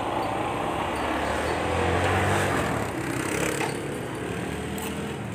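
Small motorcycle engine running as the bike rolls slowly. The low hum swells about two seconds in and eases off after that.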